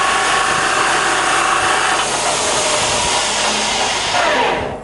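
Baoji BJ-1640GD centre lathe spindle and headstock gearing running steadily at its top speed of 2,000 rpm, a loud mechanical whir with a steady whine. Near the end it falls in pitch and quietens as the spindle is stopped.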